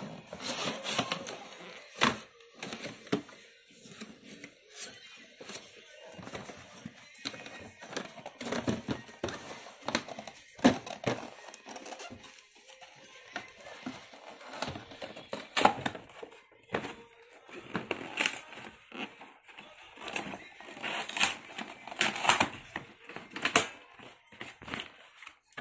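Cardboard packaging and a hard plastic toy case being handled: irregular clicks, knocks and rustling as the box is opened and the case is pulled out and set down.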